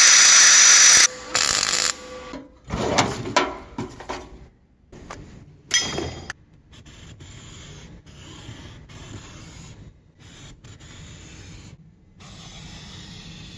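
An angle grinder's cut-off wheel cuts sheet steel in two short loud bursts at the start, followed by a few assorted shop clatters. From about seven seconds on, a permanent marker rubs across plywood in short strokes.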